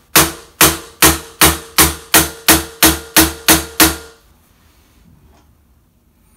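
Hammer tapping steadily on the end of a screwdriver pushed through a wheelchair caster housing, about eleven blows at roughly three a second, each ringing briefly, to drive out a worn caster fork bearing. The blows stop about four seconds in.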